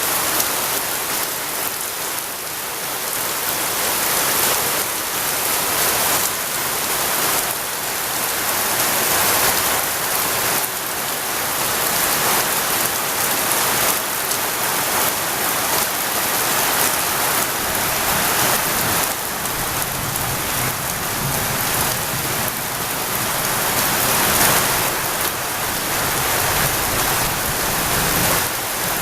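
Heavy rain falling steadily, a dense, even downpour with gentle swells in loudness.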